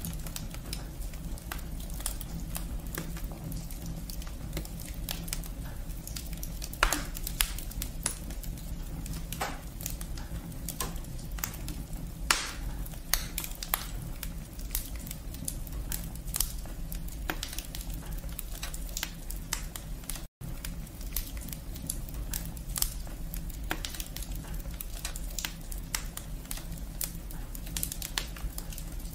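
Wood fire in a fireplace crackling steadily, with frequent small pops and a few louder snaps of the burning logs and twigs over a low rumble of the flames. The sound cuts out for a split second about two thirds of the way through.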